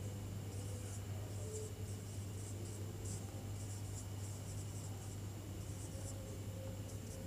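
Marker pen writing on a whiteboard: faint, short scratchy strokes, over a steady low hum.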